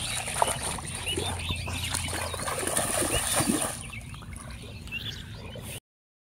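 Shallow pond water splashing and sloshing around a wading boy, with birds chirping over it. It gets quieter after about four seconds and cuts off suddenly near the end.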